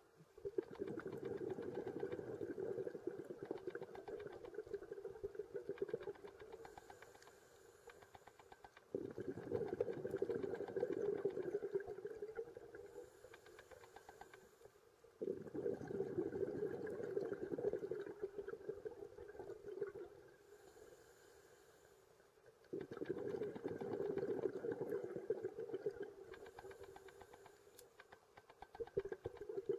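Scuba diver breathing through a regulator underwater: four exhalations of gurgling bubbles, each starting suddenly and fading over several seconds, about every seven seconds, with a faint high hiss of inhalation just before each.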